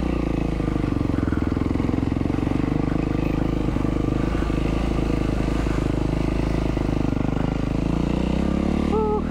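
A 2012 Yamaha WR450F's single-cylinder four-stroke engine running steadily at low revs as the dirt bike cruises along a dirt track. The revs rise near the end as the throttle opens.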